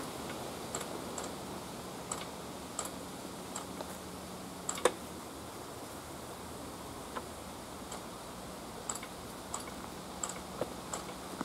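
Irregular sharp clicks and ticks from the cable-operated mechanical level-crossing barrier gear as the barriers are wound up, with one much louder clack about halfway through. A faint steady hum underneath fades out midway.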